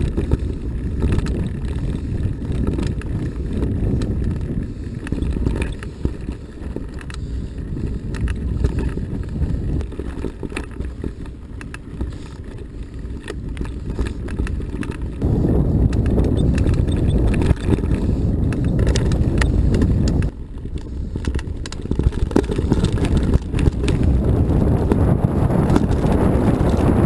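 Mountain bike rolling over a gravel dirt track, heard through a handlebar-mounted camera: a constant low rumble with many small rattles and clicks, and wind buffeting the microphone. It gets louder about halfway through, eases for a moment, then builds up again.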